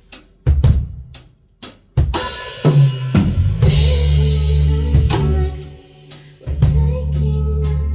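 Live band opening a song: a few sharp, separate drum hits, then about two seconds in the full band comes in with drum kit, cymbals and bass, easing back briefly near six seconds before playing on.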